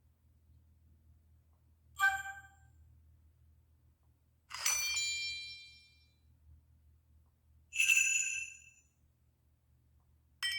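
Cell phone notification tones played one after another: four separate short electronic chimes, each a few clear ringing notes, about two to three seconds apart. The second chime is the longest, ringing for about a second and a half, and the last, near the end, is a very brief blip.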